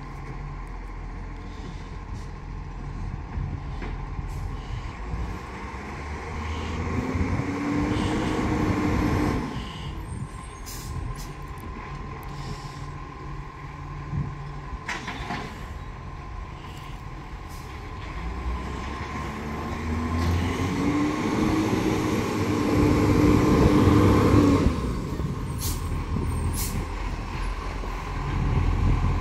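Garbage truck engine running, revving up twice for a few seconds each time, the pitch rising, holding, then dropping off suddenly, as it powers the bin-lifting hydraulics. It idles in between, with a few short sharp knocks or hisses.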